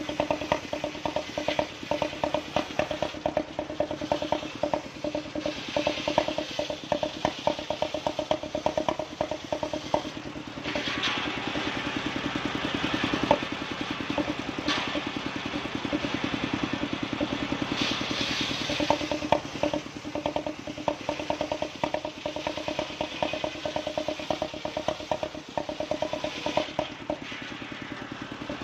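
Engine-driven circular saw bench running, its engine chugging steadily with rapid, even pulses. From about ten seconds in until about eighteen seconds the blade is cutting through a bayur (wadang) log, adding a louder hiss of sawing over the engine.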